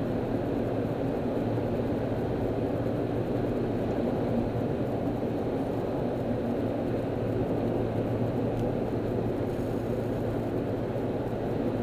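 Inside a car cruising at freeway speed: a steady low drone of engine and road noise.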